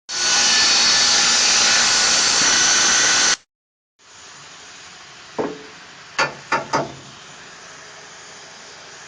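A power tool cutting steel rollbar tubing: a loud, steady cutting noise that stops abruptly after about three and a half seconds. After a brief silence comes a much quieter steady background with a few sharp knocks around the middle.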